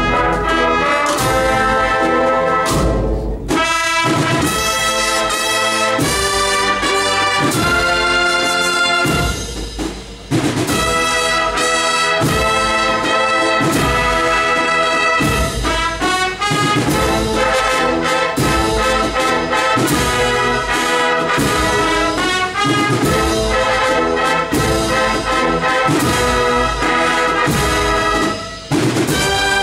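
A large brass band of trumpets, trombones and tubas playing a Spanish processional march. The music runs continuously, with a brief lull about ten seconds in and another near the end.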